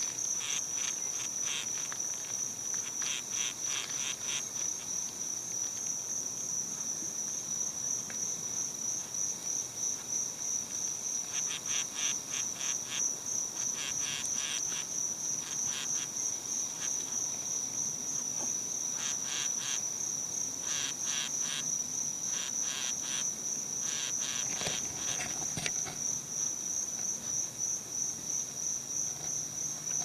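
Insects calling: a high, steady, rapidly pulsing trill runs on, joined every few seconds by short spells of fast chirping a little lower in pitch.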